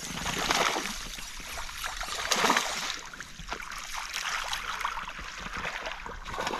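Water splashing and lapping, louder twice: about half a second in and about two and a half seconds in.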